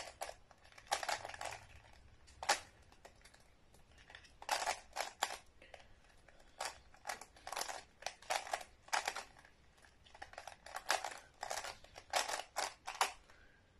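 Plastic twisty puzzle cube being turned fast by hand: quick flurries of clicking and clacking turns, broken by short pauses between sequences.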